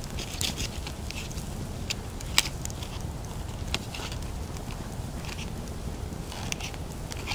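A knife works cooked squirrel meat off the bone on a sheet of birch bark beside a burning wood fire: scattered small clicks and crackles over a low steady rumble, with one sharper click about two and a half seconds in.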